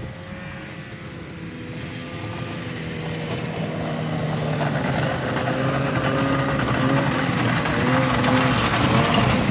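Snowmobile engine running and getting steadily louder as it approaches, its note wavering near the end.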